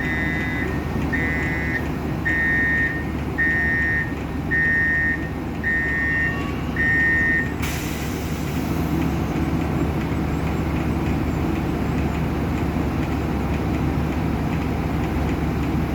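Heavy truck's diesel engine running steadily with its reversing alarm beeping about once a second. The beeping stops about halfway through, and a sudden hiss sets in.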